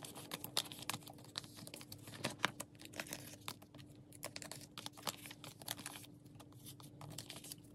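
Photocards and paper placeholder cards being slid out of and into clear plastic binder sleeves: light crinkling of the plastic with many quick, small clicks and taps of the cards.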